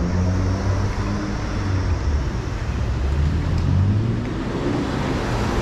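City street traffic: road vehicles passing with a low engine rumble that swells and eases.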